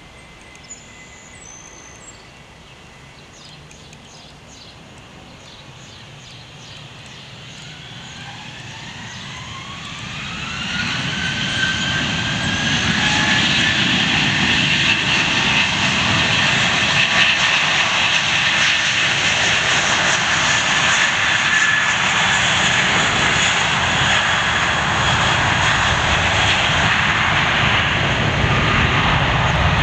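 Jet engines of a rear-engined Delta airliner spooling up for takeoff: a rising whine about eight seconds in, growing into a loud steady jet roar from about twelve seconds on as the takeoff roll begins.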